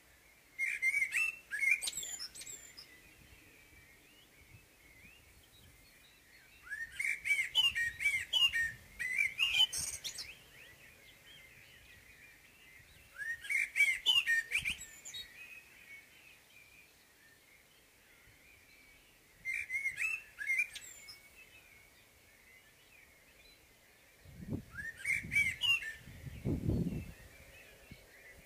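Common blackbird singing: five separate phrases several seconds apart, each of low whistled notes with a higher, scratchy twitter. A low rumble comes in under the last phrase near the end.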